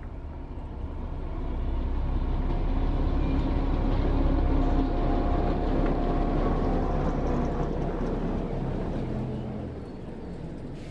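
OO gauge model class 08 shunter and coal hopper wagons running past on the track: the whirring motor and rumbling wheels grow louder as the train approaches, then fade as the wagons roll by.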